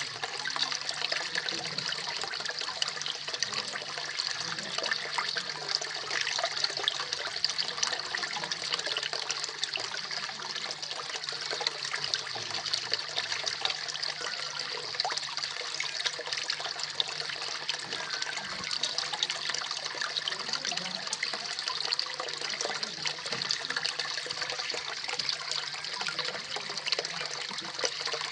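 Small garden waterfall splashing steadily into a koi pond: a continuous, even rush of falling water with fine splashing.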